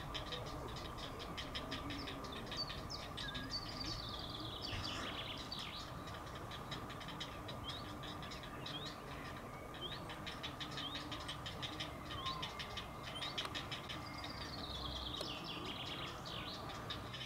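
Grey heron chicks in the nest giving their rapid ticking begging calls, a fast, even clatter of ticks kept up throughout, with short falling chirps laid over it and two longer falling calls.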